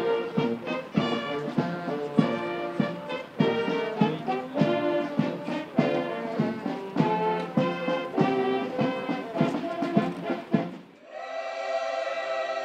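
Brass marching band playing a tune with a steady beat. About eleven seconds in the music drops away and a softer, held chord follows.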